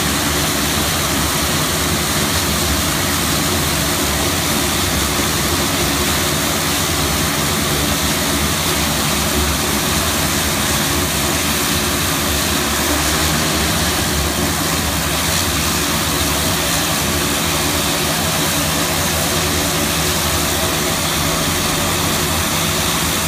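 Dornier 228's twin Garrett TPE331 turboprop engines running on the ground, a loud, steady engine and propeller drone with constant high tones throughout.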